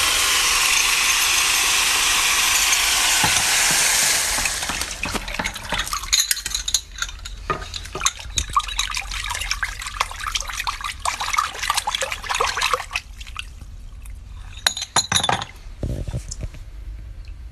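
Vibratory tumbler running with a steady dense rattle of stone polishing media for the first four seconds or so. After that come irregular splashes and small clinks as hands stir items around in a basin of water, with a few sharper clinks near the end.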